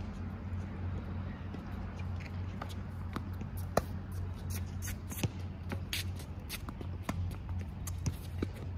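Tennis rally on a hard court: sharp pops of racquets striking the ball, the loudest about four seconds in and again about a second later, with scuffing footsteps between, over a steady low hum.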